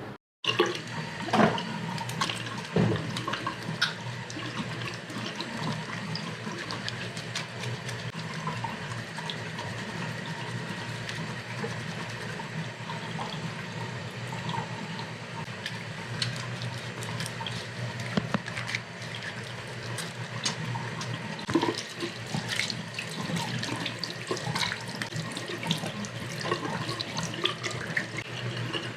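Tap water running into a sink while hands are washed under it, with steady splashing.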